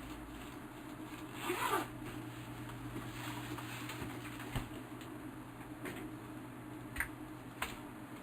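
Zipper on a Lowepro Nature Trekker AW camera backpack pulled once, briefly, about a second and a half in. A few light clicks follow as the bag is handled.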